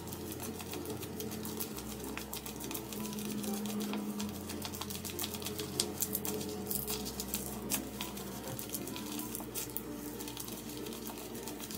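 Tape-covered paper squishy crinkling and crackling in rapid clicks as hands squeeze and release it, over faint background music.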